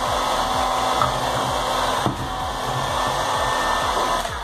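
Black & Decker heat gun blowing steadily, softening the glue on a subwoofer's rubber surround so the edge can be pried off.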